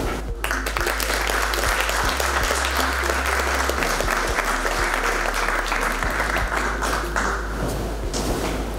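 Audience applauding, a dense patter of many hands clapping that starts just after the beginning and fades out about seven seconds in.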